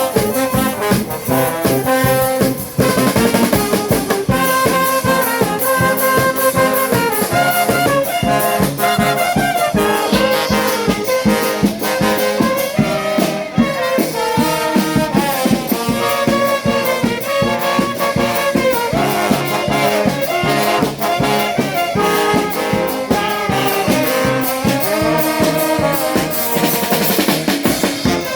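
Charanga street band playing: trumpets and trombones carry a melody over a steady drum beat.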